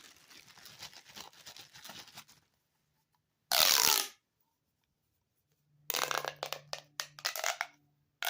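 Ribbed plastic sensory pop tubes being stretched and bent, giving a dense crackling ratchet of small clicks. About three and a half seconds in comes a short, loud pop with a falling pitch, and near the end another run of crackling bursts.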